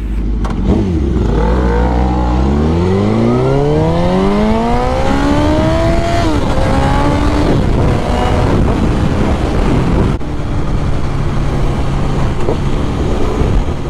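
2001 Suzuki GSX-R1000's inline-four engine pulling away hard, its pitch climbing for about five seconds before dropping at an upshift, then running steadily at speed with wind noise.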